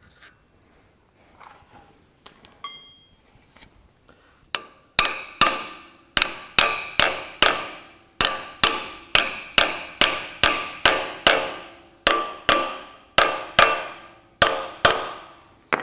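Ball-pein hammer tapping a tractor's steel front-axle ring gear to seat it onto the hub, about two dozen sharp blows in quick runs, each with a short metallic ring. The hammering starts a few seconds in, after a few faint clicks.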